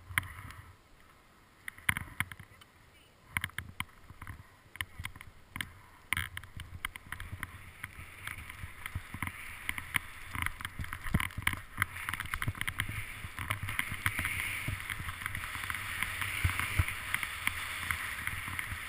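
Skis sliding and scraping through snow on a downhill run, the rushing sound and a low rumble growing steadily louder as speed builds. In the first few seconds there are a handful of separate knocks and scrapes as the skier pushes off.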